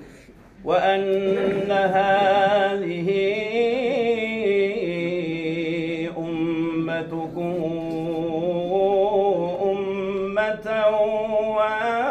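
Men's voices chanting a religious invocation together in long, drawn-out, wavering notes over a held lower note, starting after a brief pause about half a second in.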